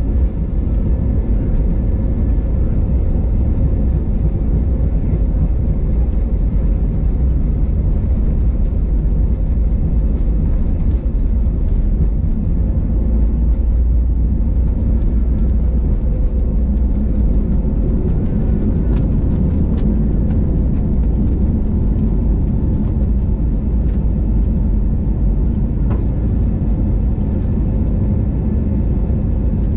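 Jet airliner cabin noise during the takeoff roll and lift-off: a loud, steady rumble of the engines at takeoff thrust and the wheels on the runway. Light rattling clicks come through about two-thirds of the way in.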